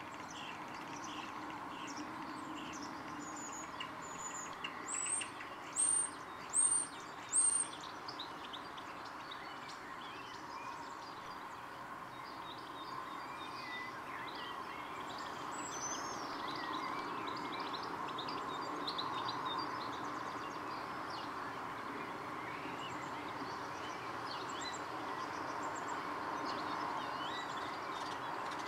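Small birds chirping and calling throughout over a steady background noise. The loudest part is a run of four or five sharp, high, rising notes about five to eight seconds in.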